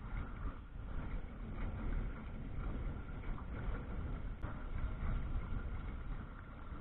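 Wind buffeting the microphone of an action camera on a sailing canoe, a rough, gusting rumble, with the rush of water along the hull.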